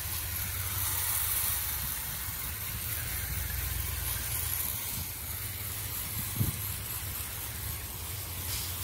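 Garden hose spray nozzle on its shower setting, spraying water over plants in a steady hiss. A single soft knock about two-thirds of the way through.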